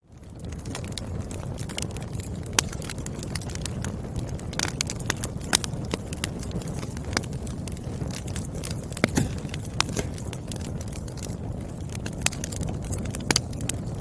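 Wood fire crackling: a steady low rumble of burning logs with frequent irregular sharp pops and snaps. It fades in from a moment of silence at the very start.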